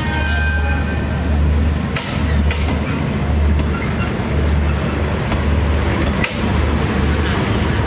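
Passenger train carriages rolling slowly past: a steady low rumble with sharp clacks of the wheels over rail joints every second or so.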